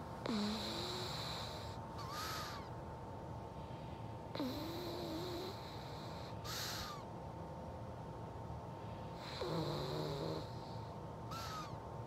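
Pug snoring in its sleep: three rounds of breathing, each a wavering, squeaky snore followed about two seconds later by a short hissing breath with a faint whistle. Noisy sleep breathing like this is typical of the breed's short, flat-faced airway.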